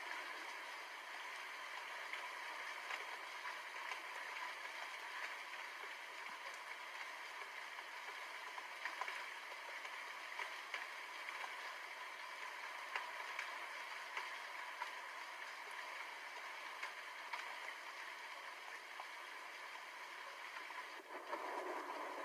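Steady rain falling: an even hiss with scattered sharp ticks of drops, briefly dipping and shifting about a second before the end.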